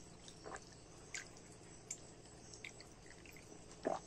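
Faint gulping as a man drinks from a plastic jug: a few soft swallowing clicks, about one every three-quarters of a second.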